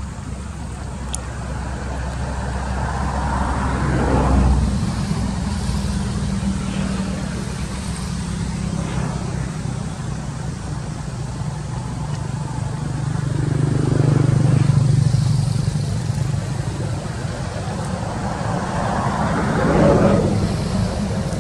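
Motor vehicles passing by: a steady engine hum underneath, with traffic noise that swells and fades three times.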